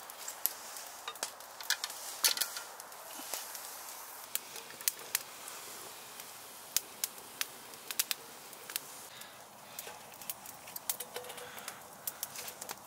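Small wood fire crackling, with irregular sharp pops over a faint hiss; the strongest cluster of pops comes about two seconds in.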